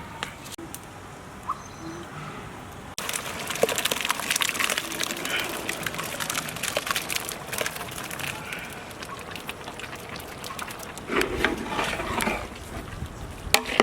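Blended wet paste going into chicken frying in butter and oil in a hot pan: a dense crackling sizzle that starts suddenly about three seconds in and keeps spattering, louder again near the end.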